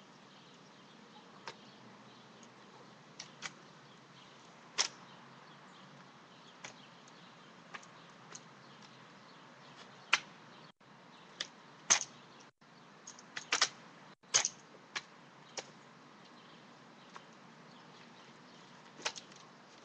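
Sharp slaps and knocks of hands striking and catching a drill rifle during exhibition rifle spinning: about fifteen separate hits at irregular intervals, bunched together in the middle.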